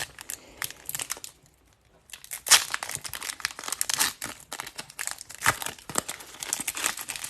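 Foil hockey card pack wrappers crinkling and rustling as they are handled, in many irregular crackles with a brief pause about a second and a half in.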